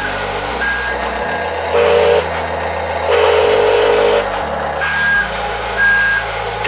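Huina 1:14 metal RC wheel loader running, its built-in speaker playing a simulated truck-engine rumble with electronic reversing-alarm beeps, over the whir of its drive motors as it moves.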